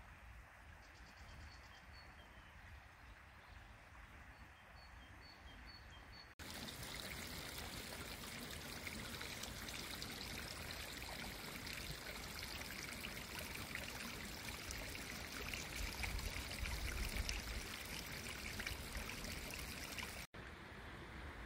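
A small stream of water running and trickling over rocks, a steady rushing hiss that starts abruptly about six seconds in and stops suddenly near the end. Before it, quiet outdoor ambience with a few faint, repeated bird chirps.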